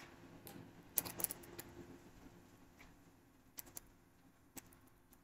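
Faint, scattered clicks of typing on a computer keyboard, with a quick run of keystrokes about a second in and single clicks after.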